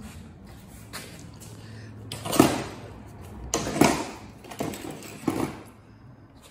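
A string of knocks and clunks from gear being picked up and moved, about five in all, the loudest two in the middle.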